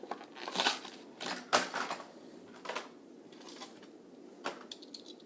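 Stiff plastic blister packaging of a Hot Wheels car crackling and clicking as it is pried open: several sharp crackles in the first two seconds, then a few scattered clicks.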